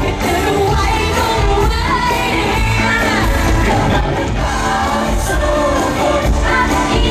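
Thai pop song performed live: a group of singers singing into microphones over a live band with drums.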